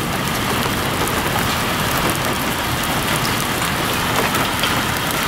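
Heavy rain falling steadily, with many individual drops ticking close to the microphone.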